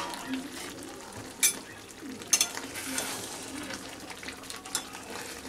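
Metal spatula stirring a thick simmering curry in a steel kadai, over a faint sizzle. A couple of sharp clicks of the spatula against the pan come about a second and a half and just over two seconds in.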